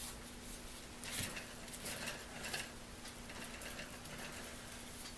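Faint handling noises from gloved hands on an old rotary hammer on the bench: a few light knocks and rustles about a second in and again around two seconds in, over a faint steady hum.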